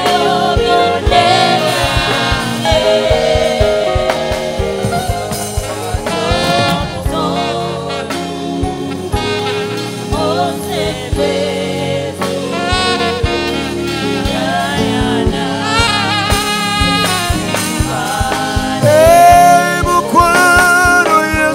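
Live gospel worship song: male voices singing a slow, emotional melody over instrumental accompaniment with a steady low beat.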